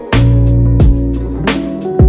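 Background music with a steady bass line and sharp drum hits.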